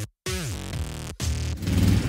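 Electronic dance music with stuttering cuts to silence and falling pitch sweeps. Near the end a small gasoline kart engine running steadily comes in over it, louder.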